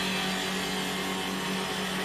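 CNC woodworking lathe running, its spindle motor humming steadily while the double cutters shave a turning wooden spindle.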